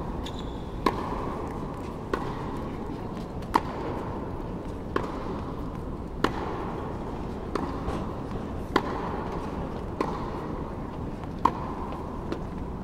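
Tennis balls struck by racket in a steady baseline practice rally: a sharp hit about every two and a half seconds from the near player, with fainter hits and bounces between, over a steady hum.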